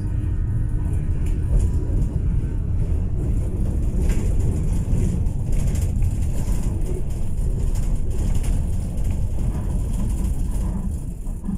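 Tram running along street track, heard from inside the car: a steady low rumble of wheels on the rails and traction equipment, with a few faint knocks.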